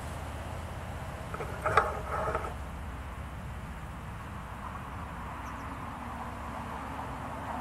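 Narrowboat engine running steadily at low cruising revs, a low even thrum. About two seconds in, a brief higher-pitched sound rises over it.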